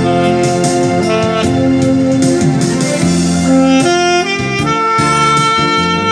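Tenor saxophone playing a melody in long held notes over a musical accompaniment with a steady beat.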